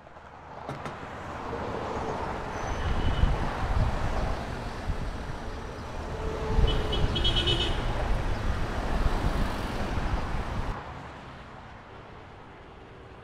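Street traffic: motor vehicles passing close by, a rumbling engine-and-tyre noise that swells twice, with short high tones near each peak. The traffic noise drops suddenly near the end to a quieter background hum.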